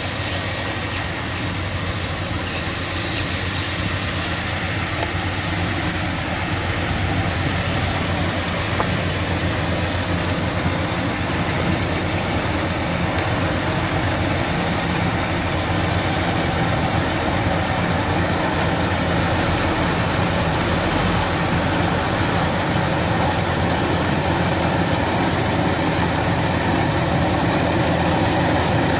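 Kubota DC-105X combine harvester's diesel engine running steadily under a dense mechanical din, growing gradually louder.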